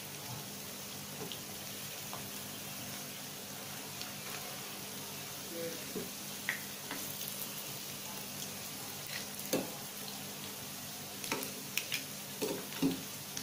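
Battered chicken wings deep-frying in plenty of hot oil: a steady sizzle, the sound of moisture still cooking out of the wings, with a few short clicks and pops, most of them in the last few seconds.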